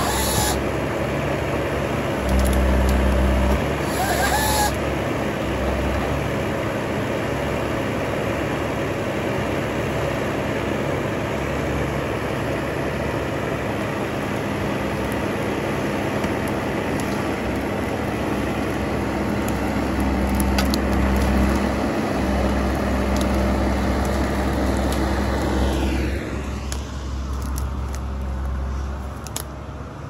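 Usewood compact wheeled forestry harvester running, its engine and hydraulics working the crane and harvester head, with the engine loading up in deeper surges now and then. Near the end the machine sound drops away to a quieter, thinner background.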